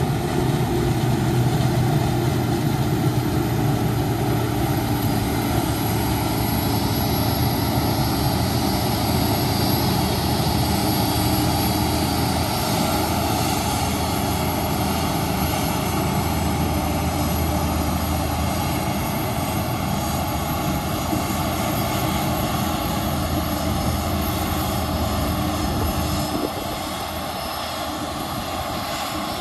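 Claas Jaguar 960 self-propelled forage harvester running steadily under load while chopping maize, a continuous drone with a high whine, together with the tractor hauling the trailer alongside it. Wind rumbles on the microphone, and the low rumble drops off sharply near the end.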